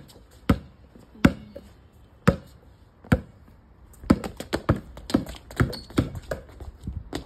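Basketball bouncing on brick paving: single sharp bounces about once a second at first, then a quicker, busier run of bounces and footsteps from about four seconds in as a player drives with the ball.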